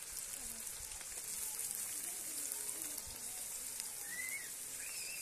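Sliced onions sizzling in hot oil in a black wok: a steady frying hiss with fine crackles.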